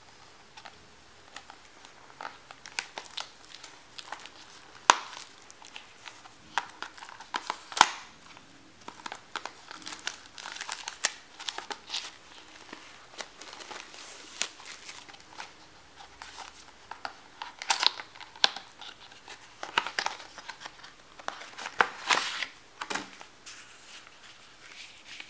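AppleCare Protection Plan package being opened by hand: its wrapping crinkling and tearing, with many irregular sharp crackles and clicks.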